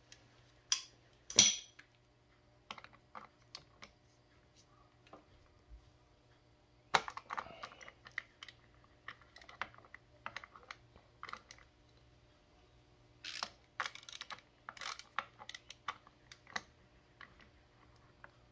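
Irregular metallic clicks and taps as a makeshift hand tool is fitted and worked against the clutch centre of a Honda GL1200 Goldwing engine, with a few louder knocks about a second in, about seven seconds in, and between thirteen and fifteen seconds.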